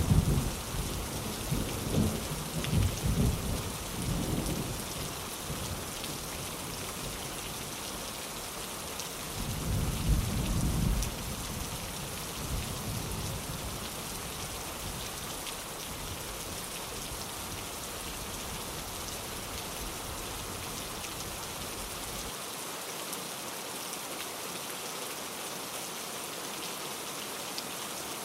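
Steady rain with rolls of thunder: a low rumble dying away over the first few seconds, and another about ten seconds in.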